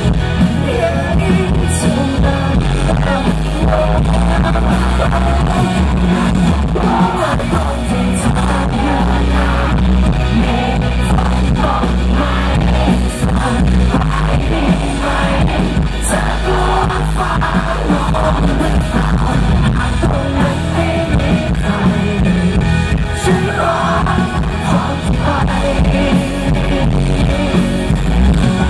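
Live rock band playing loudly through a PA, with a male lead vocalist singing over strong bass and steady band accompaniment.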